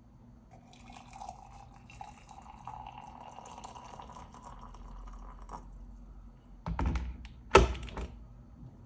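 Water poured from a SMEG electric kettle into a ceramic mug, the pitch of the pour rising slowly as the mug fills. After the pour stops, the kettle is set back down with two clunks, the second the loudest.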